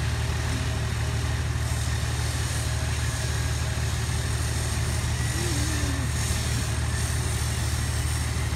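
Heavy diesel engine idling steadily with a low, even rumble.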